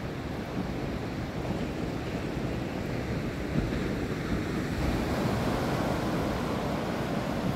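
Ocean surf breaking and washing up a flat sandy beach in a steady, even rush, swelling a little partway through, with wind rumbling on the microphone.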